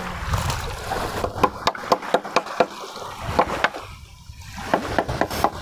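Amazon River water lapping and splashing at the bank in quick, irregular small splashes and ticks.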